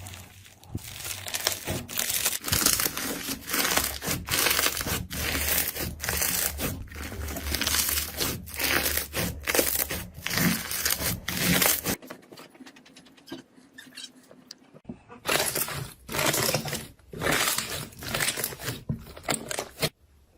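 Slime being squeezed and worked by hand: a run of irregular crackling, crinkling squishes, easing off for a few seconds around the middle before starting again.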